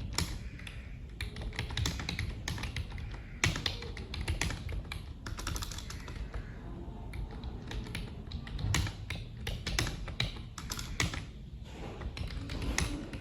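Typing on a computer keyboard: a continuous, irregular run of quick key clicks.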